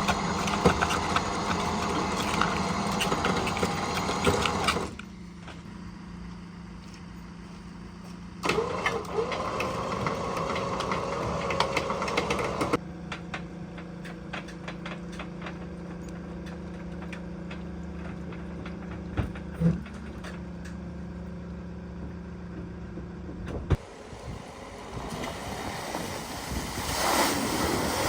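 Vehicle engine running steadily at idle. The sound changes abruptly several times, getting louder or quieter in sudden steps.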